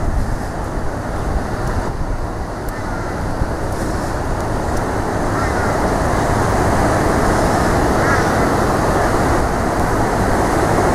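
Steady rush of a fast-flowing river in flood, with wind buffeting the microphone, growing a little louder about halfway through.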